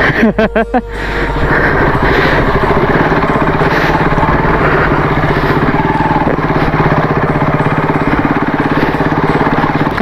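Motorcycle engine running at a steady, low speed while the bike is ridden over a rough dirt track. The sound cuts out briefly a few times in the first second.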